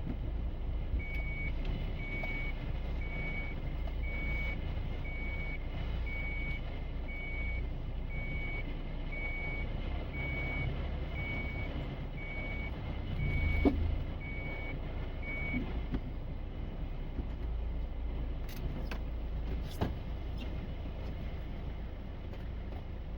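A vehicle's electronic warning beeper sounding one steady high tone about once a second, some fifteen beeps in all, then stopping, over a low steady engine rumble. A bump about two-thirds of the way through and a couple of sharp clicks near the end.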